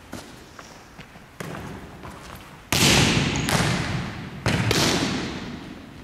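A volleyball being struck back and forth: a run of sharp smacks, the loudest coming a little before halfway and again about three-quarters through. Each smack rings out in the long echo of a gymnasium.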